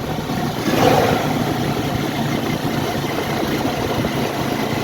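Car engine running with a steady low hum under an even wash of noise, heard from inside the cabin.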